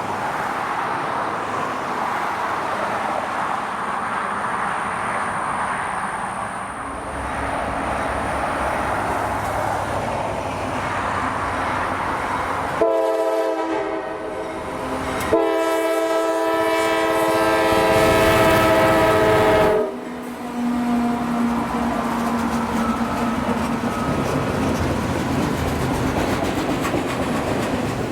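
Freight train rolling by with steady rail and wheel noise. Its locomotive horn sounds a short blast a little before the midpoint, then a long blast of about four seconds, both a chord of several tones.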